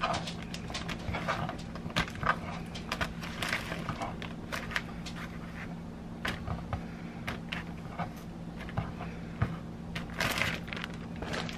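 A plastic bag crinkling and rustling as cut vegetables are put into it, with irregular light knocks and clicks from the food and bag being handled. A steady low hum runs underneath.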